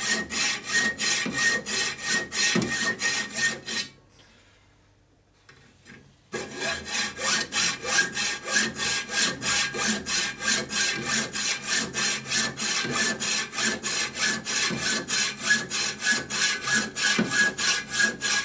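Hand hacksaw sawing through metal bar stock in steady back-and-forth strokes, about two to three a second, with a faint ringing from the blade. The sawing stops for about two seconds, then picks up again at the same pace.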